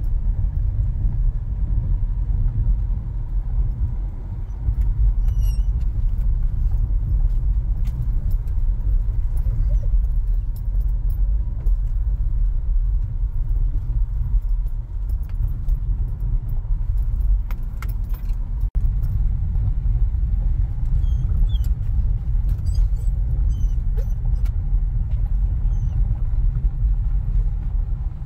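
Road noise heard inside a moving car's cabin: a steady low rumble of engine and tyres, with light clicks and rattles now and then.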